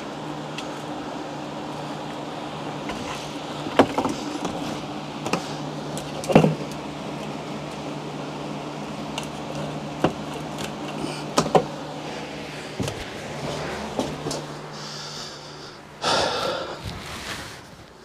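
Scattered knocks and scrapes from thermostat wire and conduit being worked while a snag in the wire run is cleared, over a steady low hum. The hum stops about sixteen seconds in, and a louder rushing scrape follows for a second or so.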